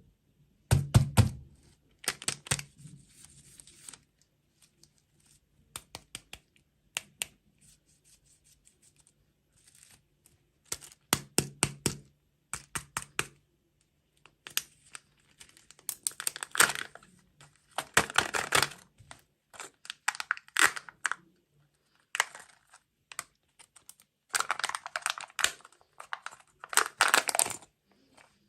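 Snack and candy packaging being crinkled and torn open, broken up by sharp clicks and taps. The rustling comes in short bursts of a second or two, with the longest stretches near the middle and near the end.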